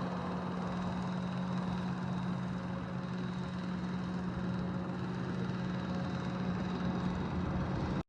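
A vehicle engine running steadily, a constant low hum with one strong held tone that does not rise or fall. It cuts off suddenly at the very end.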